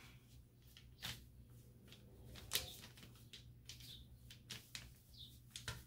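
Faint rustling of a printed sublimation transfer sheet being positioned and smoothed by hand on an infant bodysuit, with a few light clicks, the clearest about a second in and again about two and a half seconds in.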